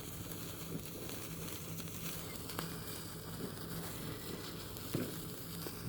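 Faint crackling of a bonfire, a few soft ticks over a low steady hiss.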